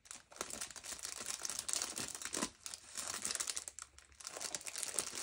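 Clear plastic bags of diamond-painting drills crinkling as they are handled and flipped through, in irregular spurts with a short lull about four seconds in.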